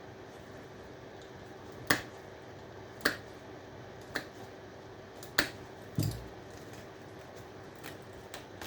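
Hand cutters snipping through scrap metal parts on electronic boards, five sharp separate snaps about a second apart.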